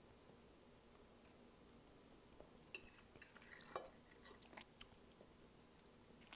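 Faint eating sounds: a metal fork clicking and scraping against a ceramic plate while noodles are twirled, with soft chewing. The clicks come in a scattered run through the middle seconds.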